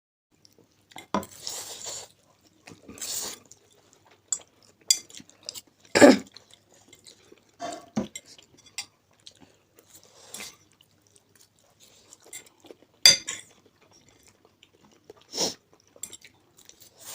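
Eating utensils clinking and scraping against dishes while noodles are eaten: scattered short clicks and scrapes, loudest about six seconds in and again about thirteen seconds in.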